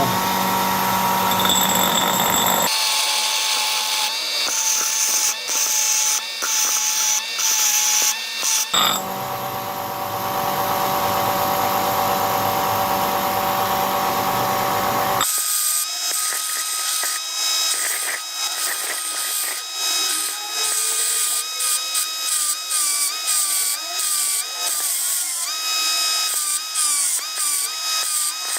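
Electric power tool motor whining steadily, in several spliced clips; in the longer last clip the pitch dips again and again as the tool is pressed into the work and recovers.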